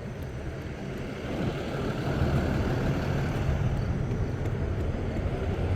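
Steady wind and road noise from riding an electric scooter slowly along a street, growing a little louder about two seconds in.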